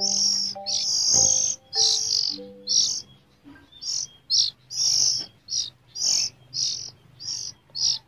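Juvenile oriental magpie-robin (kacer) screeching its harsh, repeated begging calls, about two a second, while being hand-fed from a feeding stick: the hunger call of a young bird asking to be fed.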